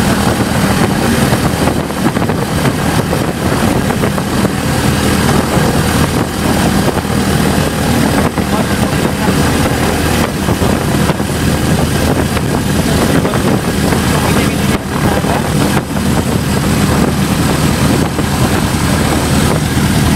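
Light aircraft's piston engine and propeller running steadily at low taxiing revs, heard from inside the cockpit. It is a constant low drone under loud airflow noise.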